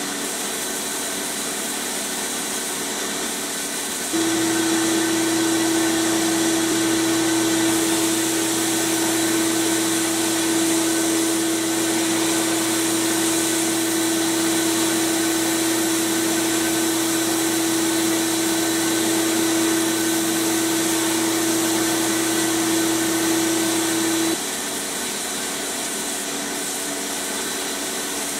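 Abrasive blast cabinet running with a steady rushing hiss of air and grit as paint and rust are blasted off a pressed-steel toy truck part. A louder steady hum comes in about four seconds in and cuts off suddenly near the end.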